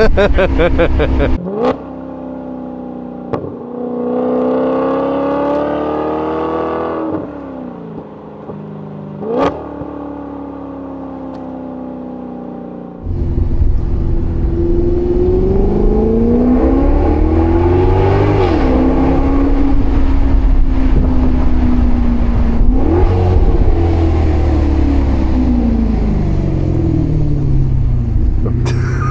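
Maserati GranCabrio's Ferrari-derived 4.7-litre V8 pulling through the gears, its pitch rising and breaking at upshifts at moderate throttle. About 13 s in it turns loud under hard acceleration, pitch climbing, dropping at a shift, then holding. Near the end the pitch falls as it eases off, then rises again.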